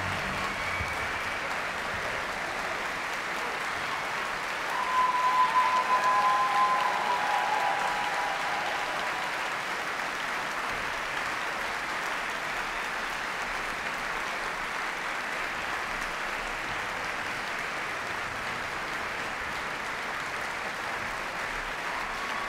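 Concert audience applauding steadily, with a brief cheer rising out of the clapping about five seconds in.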